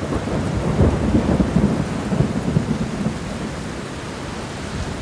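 Thunder rumbling over steady rain, the rumble heaviest in the first two seconds and easing after.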